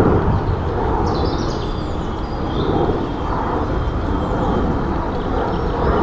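Steady low rumbling outdoor background noise, with faint high chirps of birds about a second in and again around the middle.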